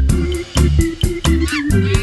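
Upbeat background music with a steady drum beat and bass line, in a funky style.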